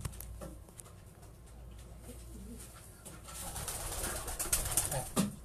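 Racing pigeons cooing in their loft. From a little past the middle there is louder rustling and handling noise as a pigeon is caught and held in the hands.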